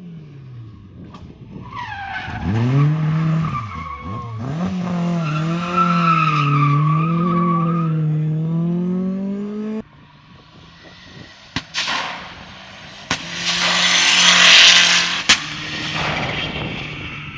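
Rally car engine revving hard, its pitch climbing and wavering through throttle changes, then cutting off abruptly. After that come a few sharp knocks and a loud rushing skid of tyres.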